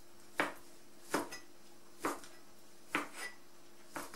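Chef's knife chopping salted herring fillet into pieces on a plastic cutting board: five sharp chops, about one a second.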